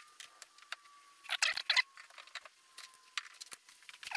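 Light metallic clicks and taps from the lathe and the locomotive wheelset mounted in it as the wheelset is handled between centres, with a little cluster of taps about a second and a half in. Under them runs a faint high whine that slowly falls in pitch.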